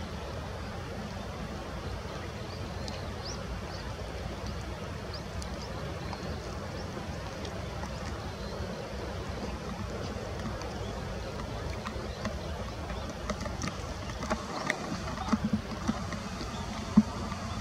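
Steady patter and hiss of rain with a low rumble underneath. Scattered faint ticks run through it, and several sharper knocks come near the end, the loudest just before it stops.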